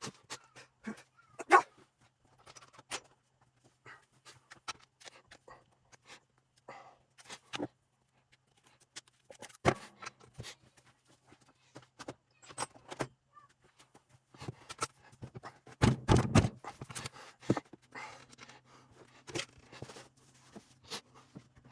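Hand tools and metal transfer-case parts being handled on a workbench: scattered clinks and knocks, with a burst of louder knocks about two-thirds of the way through, over a faint steady hum.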